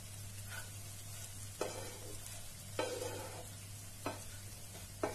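Spatula stirring flattened rice (poha) with spices in a non-stick frying pan over a soft, steady frying sizzle. Four sharper strokes of the spatula against the pan come about a second apart.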